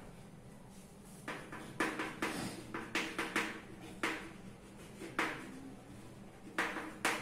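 Chalk tapping and scratching on a blackboard as a word is written: a string of short, sharp strokes at an irregular pace, starting about a second in.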